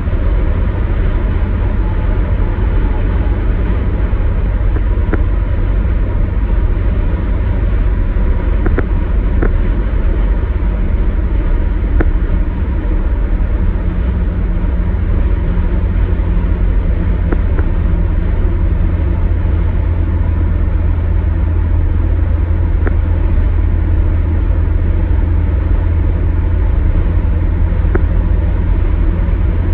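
Steady road and engine noise of a car driving at highway speed, heard inside the cabin: a constant low rumble with tyre hiss. A few faint, short ticks sound now and then.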